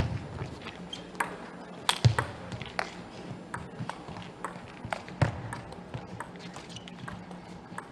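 Table tennis rally: the ball clicking off the players' bats and bouncing on the table in a sustained, irregular back-and-forth, with a few heavier low thuds.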